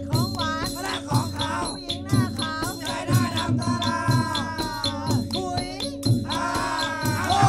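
Background music with a steady beat, held tones and a sliding melody.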